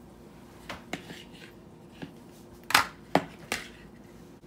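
About six light knocks and clicks from a plastic mixing bowl and an aluminium foil pie pan being handled as canned peach slices are laid into the pan. The loudest knock comes a little past halfway.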